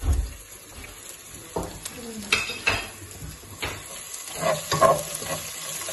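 Onions and garlic-ginger paste sizzling in a non-stick pot while a wooden spatula stirs them. Several scrapes of the spatula against the pot, with a dull knock at the start.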